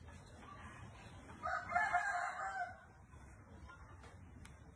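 A rooster crowing once, a single call of about a second and a half starting about a second and a half in.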